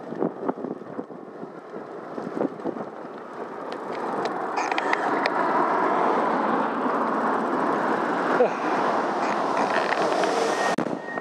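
Riding noise of a bicycle on a paved cycle path: clicks and rattles over the first few seconds, then a louder, steady rushing noise from about four seconds in.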